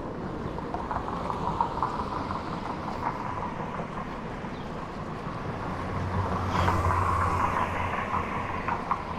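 City street traffic: steady noise of passing vehicles, with a heavy vehicle going by loudest between about six and eight seconds in.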